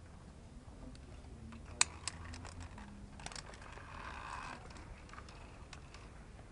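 Scattered sharp clicks: two about two seconds in and a quick run of them about a second later. A short scraping rustle follows. These are the handling sounds of a climber and their gear moving down a via ferrata.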